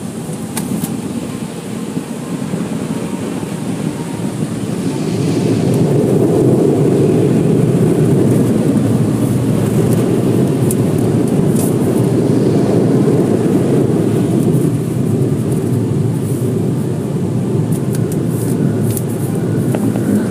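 Automatic car wash machinery heard from inside the car: a loud, steady rushing rumble that builds over the first five seconds or so and then holds.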